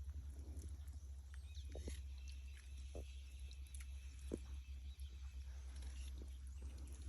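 Birds giving short, scattered chirps, faint, over a steady low hum.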